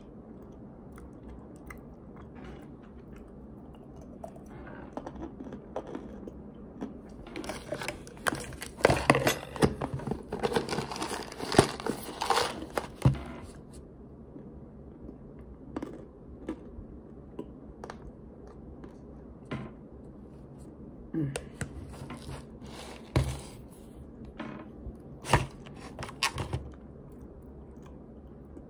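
Chewing and crunching of a chunk of starch close to the microphone, with a long stretch of loud, dense crunching in the middle and scattered sharp crunches and clicks later on.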